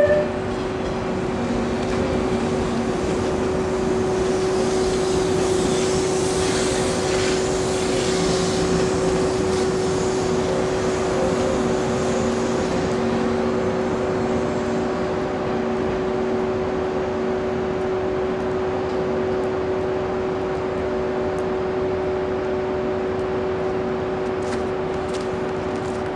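A 485-series train running slowly past into the station platform, with a steady hum throughout and a hiss rising and fading about five to nine seconds in.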